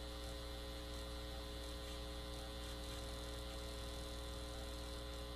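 Steady electrical hum with higher buzzing tones above it, coming from stereo speakers fed by a homemade pickup: a microwave oven transformer clamped to a steel beam. The speaker calls it the same oscillation, with a little crackling.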